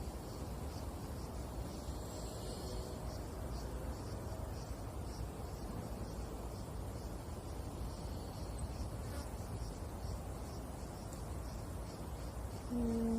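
Outdoor summer ambience: an insect chirping in a steady, even pulse a couple of times a second over a low steady rumble. Near the end a loud held tone at one steady pitch begins.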